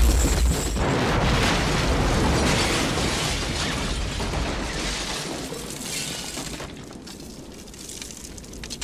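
Large explosion blasting a wooden building apart: a sudden boom, then a long rumble with crackling and falling debris that slowly fades.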